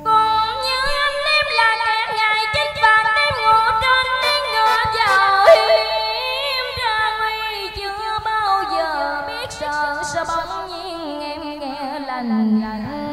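A woman singing a long, ornamented line of Vietnamese cải lương, her notes sliding and wavering and held at length.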